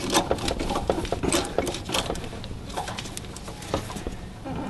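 Irregular light clicks and taps of a 12 mm socket wrench tightening the starter generator's adjustment bolt on a Yamaha G9 golf cart, which locks in the new starter belt's tension.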